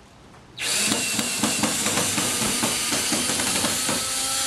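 Cordless drill running on a screw in a wooden 2x4, starting about half a second in and running loudly with a fast rattling chatter; near the end the motor's steady whine comes through.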